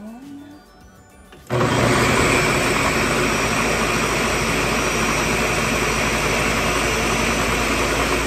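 Countertop blender switching on about a second and a half in and running steadily, puréeing a jar of cooked chunky vegetables and liquid into a smooth sauce.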